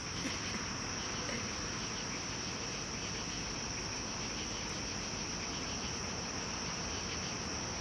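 Night insects, crickets by their sound, chirping in a steady high-pitched chorus over a constant low background rush.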